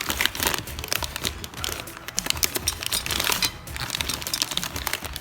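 Packaging crinkling and crackling in quick, irregular clicks as parts are handled out of their wrapping, over background music.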